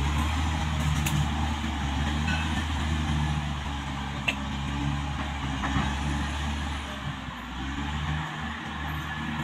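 Caterpillar D6R XL bulldozer's diesel engine running steadily as a low hum, easing a little near the end.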